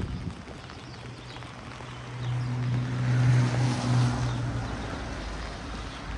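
A motor vehicle passing on a wet street: a steady low engine hum with tyre hiss that swells about two seconds in, is loudest in the middle, and fades near the end.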